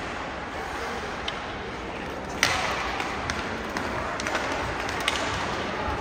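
A single sharp, ringing ping of a hard impact about two and a half seconds in, the loudest sound, among a few lighter clicks and taps over steady background noise.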